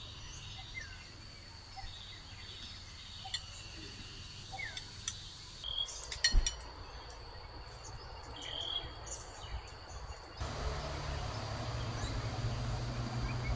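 Forest birds chirping in short calls over a steady high insect drone, with a few sharp clicks about six seconds in; about ten seconds in, a louder low hum comes up beneath the birds.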